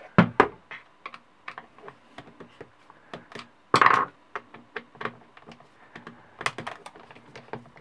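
Irregular clicks and knocks of an angle grinder's plastic body and metal gear head being handled and turned over on a workbench, with a screwdriver nearby. There is a louder clatter about four seconds in.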